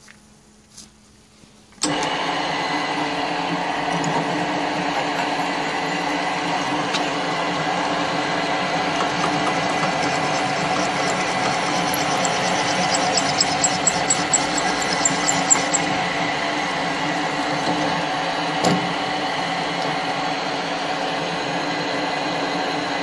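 Column drill press switched on about two seconds in and running steadily, its drill bit on a homemade extension rod cutting down into a metal part clamped in a vise. A fast, high-pitched ticking comes in for a few seconds about halfway through.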